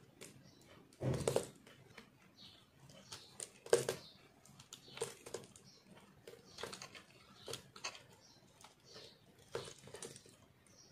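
Snap-off utility knife blade carving a hard ball of re-molded, pressed soap crumbs: a series of short, crunchy scrapes, the strongest about a second in and just under four seconds in, then lighter ones roughly once a second.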